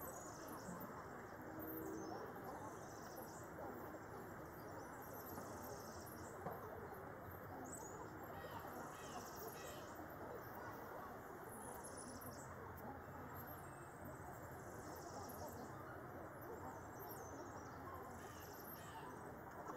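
Wild birds chirping and singing on and off over a steady low background hiss.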